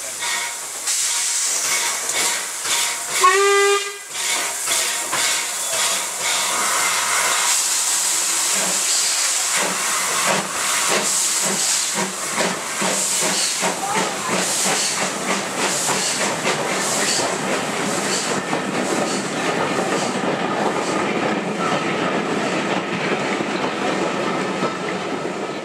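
LBSCR A1X 'Terrier' 0-6-0 tank engine sounding a short blast on its steam whistle about three seconds in, then pulling away with steam hiss and exhaust beats. Its train of coaches follows, rolling past with clicking wheels.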